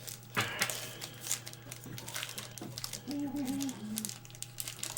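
Trading cards and pack wrappers being handled, with scattered light taps and crinkles. A steady low hum runs underneath, and a brief faint voice comes in about three seconds in.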